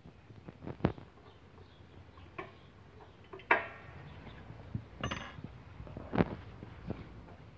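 Scattered sharp clicks and knocks, the loudest about three and a half seconds in, with a light metallic clink about five seconds in.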